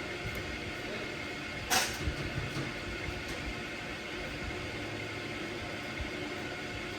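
Steady hum of workshop machinery, with a single sharp knock a little under two seconds in.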